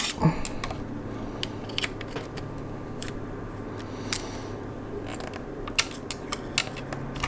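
Scattered small clicks and taps of a small bolt and metal parts being handled by fingers in a motorcycle's frame, over a steady low hum.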